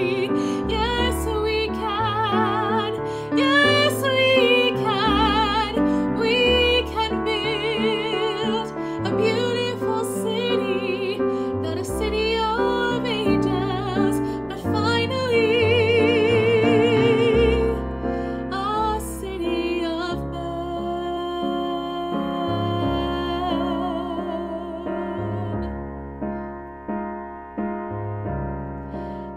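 Woman singing with wide vibrato over piano accompaniment, holding a long note about halfway through, after which the music grows softer.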